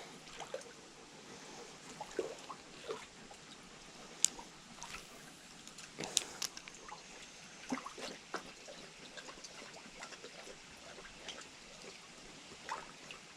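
Creek water trickling faintly, with scattered light splashes and clicks, the sharpest about four and six seconds in.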